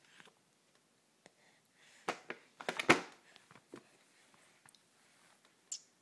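Short clicks and scrapes of a baby being spoon-fed in a high chair, a cluster of them loudest about two to three seconds in.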